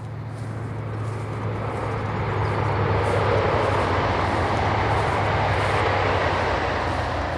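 Engine noise of something passing by: a steady low hum under a rushing sound. It swells to a peak about halfway through, then slowly fades.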